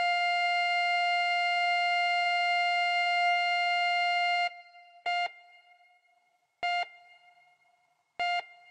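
Telephone line tone: one steady electronic tone that cuts off about four and a half seconds in, followed by three short beeps at the same pitch, about a second and a half apart.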